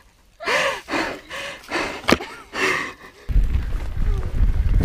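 A rider breathing hard in about four short, effortful gasps and grunts while pushing a mountain bike up a steep slope, with one sharp click just after two seconds. A little over three seconds in, this gives way to a loud, uneven low rumble of wind on the camera and tyres on a dirt trail during a downhill ride.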